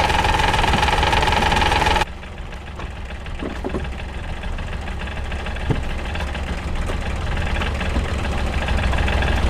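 Truck engine idling with a steady low rumble that slowly grows louder. For about the first two seconds a loud steady high-pitched whine sits over it and then cuts off abruptly.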